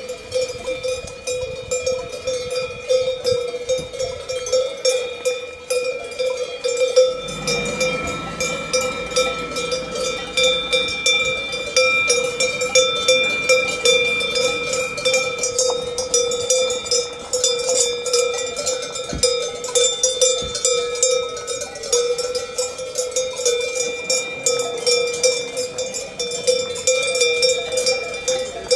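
Cowbells on grazing cattle ringing without a break, several bells clanking unevenly as the cows move and graze.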